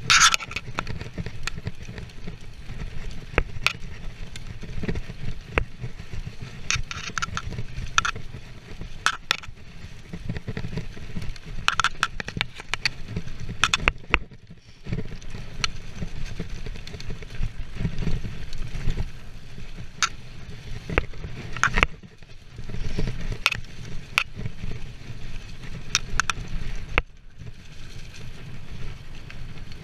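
Mountain bike ridden fast down a rough dirt trail: wind rumbling steadily on the microphone, tyres running over dirt and dry leaves, and frequent sharp clacks and rattles from the bike as it hits bumps.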